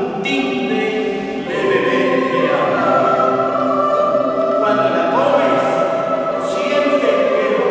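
A mixed choir, mostly women's voices with a few men's, singing held notes and phrases.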